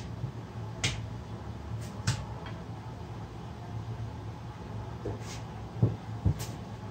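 Light clicks and knocks of dishes being handled, then two dull thumps near the end as the egg bowl is set down on the table, over a low steady hum.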